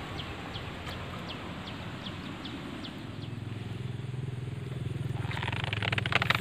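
A small engine running steadily, growing louder from about halfway through. A run of short falling chirps is heard in the first couple of seconds, and water splashing comes in near the end.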